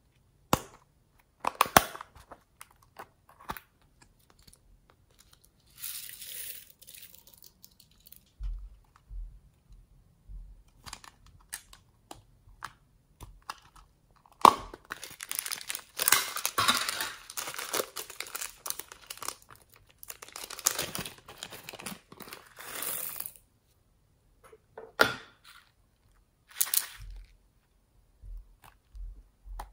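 Plastic toy makeup cases being handled: several sharp plastic clicks and taps, with stretches of crinkling and rustling, the longest lasting about eight seconds in the middle.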